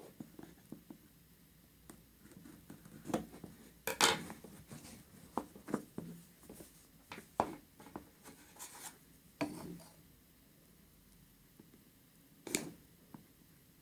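Hands handling a smartphone's cardboard retail box and its packaging: scattered scrapes, rubs and light clicks, the loudest scrape about four seconds in and a sharp one near the end.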